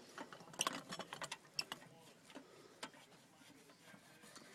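Irregular light clicks and taps of a screwdriver driving screws back into a driveway light fixture's lid. The clicks are thickest in the first two seconds and sparse after.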